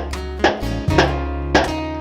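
Instrumental passage of a gospel song between sung lines: acoustic guitar strummed about twice a second over a steady bass.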